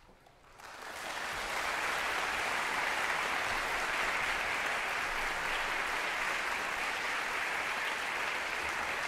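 Audience applauding in a concert hall, starting about half a second in and swelling within a second to steady, even applause.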